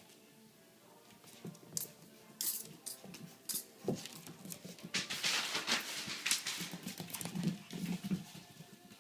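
Small shih tzu–poodle mix puppy playing and moving about: scattered clicks and scuffles, a rustling stretch in the middle, and a few short low sounds near the end.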